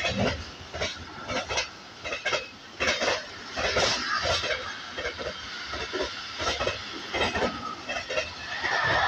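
Intermodal freight train of container and tank wagons rolling past close by, its wheels clattering in irregular metallic clicks and clanks over a steady rumble. A higher, wavering squeal comes in near the end.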